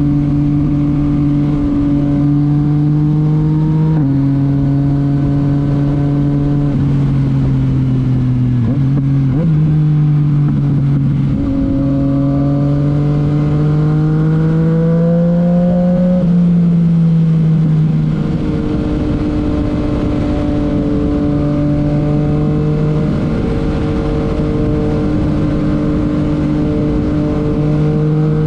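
Yamaha MT-09's inline three-cylinder engine through a titanium Akrapovic exhaust, running at a mostly steady engine speed with several steps in pitch. Revs climb about halfway through, then drop back and hold steady.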